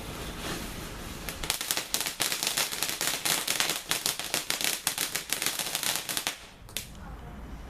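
Ground fountain firework spraying and crackling. A rapid, dense run of crackles starts about a second and a half in and dies away near the end, with one last crack.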